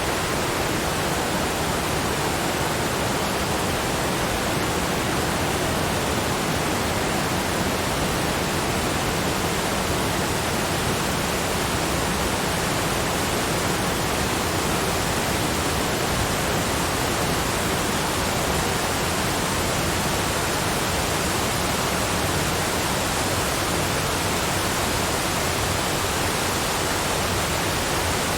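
Waterfall rushing steadily, an even hiss-like roar of falling water with no breaks or changes.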